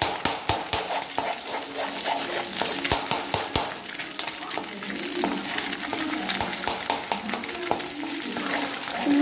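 Metal spatula scraping and clinking irregularly against a kadai while stirring and breaking up egg into small crumbles, over a steady sizzle of the egg frying in oil.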